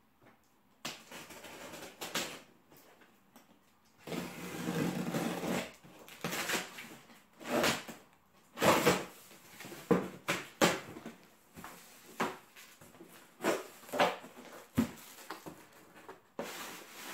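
Packing tape on a cardboard box being slit and torn, and the box's flaps pulled open and folded back: an irregular string of rips, scrapes and rustles with a few sharp knocks of cardboard.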